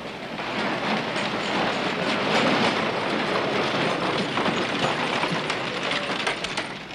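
Horse-drawn wagon rolling along: hooves clopping and wooden wheels rattling in a dense, steady clatter that builds up in the first second.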